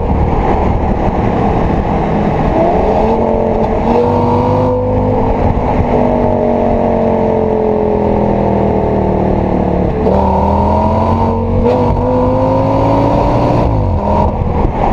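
Audi S8 D3's 5.2-litre V10 exhaust under way, its engine note climbing about two and a half seconds in, sinking slowly, then climbing again from about ten seconds and falling off near the end.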